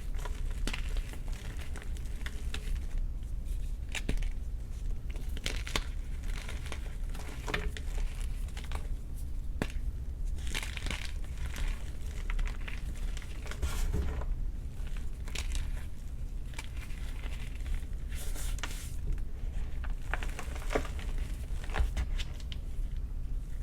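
Baked gym chalk being crushed, giving dry, irregular crunching and crackling.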